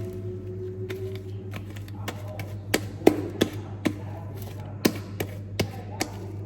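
Homemade slime being kneaded and stretched by hand, making irregular sharp clicking pops, about ten of them, over a steady low hum.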